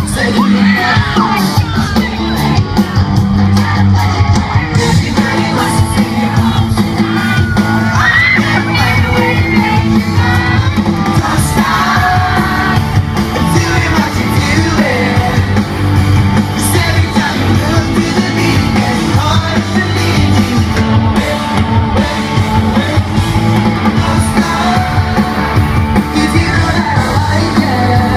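Live pop-rock band playing a song with drums, bass, guitars and lead singing, with yelling from the audience over it.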